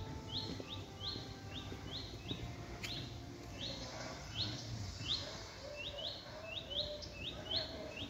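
A small songbird chirping over and over, short high chirps about twice a second, with a single click about three seconds in.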